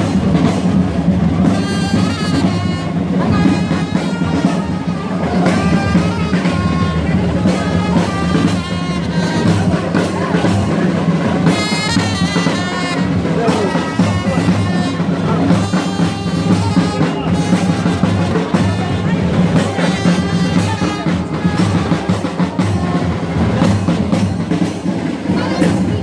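Street parade band playing: drums beating a steady rhythm with brass over it, amid crowd chatter.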